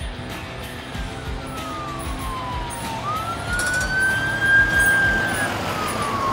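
Ambulance siren wailing as the ambulance approaches and passes close by: a long downward sweep, a sharp rise about three seconds in, a held high tone, then another fall. It is loudest as the ambulance passes, about four to five seconds in.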